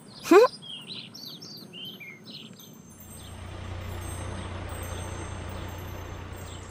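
A loud, short rising voice-like sound, then birds chirping. From about three seconds in, a cartoon truck engine runs with a steady low hum.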